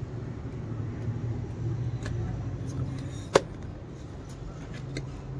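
Fresh engine oil being poured from a can into the engine's oil filler, with one sharp knock a little over three seconds in.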